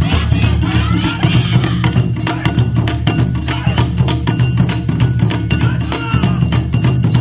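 Music for an Awa Odori dance performance, with a rapid run of sharp, wood-block-like percussion strikes over a sustained low bass.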